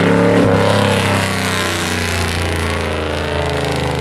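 Pickup race truck's engine running as it cruises past on a slow victory lap, its pitch dropping about half a second in and then holding steady.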